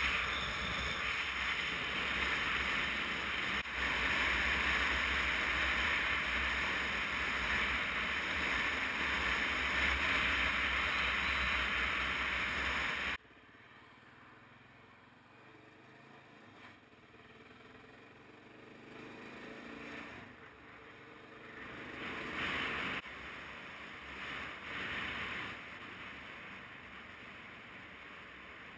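Motorcycle riding at road speed: a loud, even rush of wind on the microphone over engine and road noise. About halfway through it cuts off abruptly to a much quieter ride on a dirt track, the noise swelling a few times.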